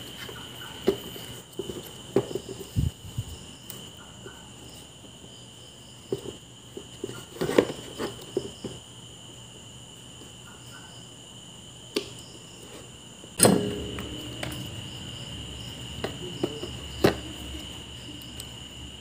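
Scattered clicks, taps and knocks of small tools and parts being handled while a relay is fitted to a subwoofer amplifier board, with one louder clatter that rings briefly about two-thirds of the way in. Crickets chirr steadily behind.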